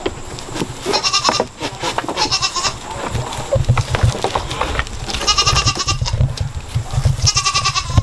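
Nigerian Dwarf goats bleating: four high, wavering bleats, two in the first three seconds and two more in the second half.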